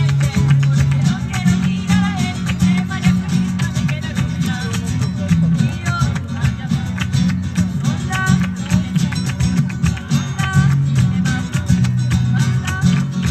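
Live flamenco music played on acoustic guitars, strummed in a quick, steady rhythm.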